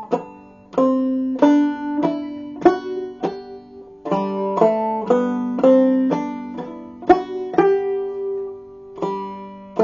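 Five-string banjo played clawhammer style, picking out the G major scale one note at a time over a ringing open string.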